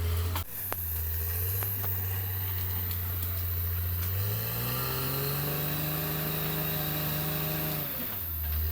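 Caterpillar D6R XL bulldozer's diesel engine running steadily, with two sharp knocks in the first second. About four seconds in the engine speeds up, holds the higher pitch for about three and a half seconds, then drops back.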